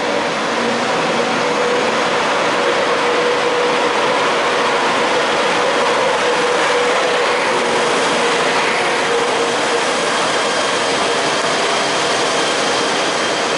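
A passenger train with DB class 111 electric locomotives pulling away, its brakes squealing in several steady high tones over the rolling noise: the brakes were released too late.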